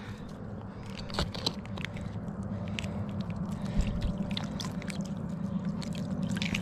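Water sloshing and splashing in an ice-fishing hole as a brown trout is held in it by hand, with scattered small clicks, over a steady low hum.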